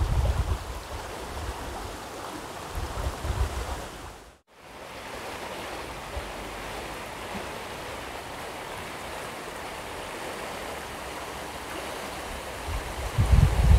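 Steady rushing hiss of outdoor noise, with gusts of wind buffeting the microphone at the start, again about three seconds in, and near the end. The sound drops out for a moment about four and a half seconds in, then the steady hiss resumes.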